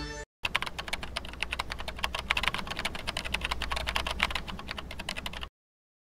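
Typing sound effect: a rapid run of key clicks that starts after a short silence and stops abruptly near the end, keeping time with title text being typed onto the screen.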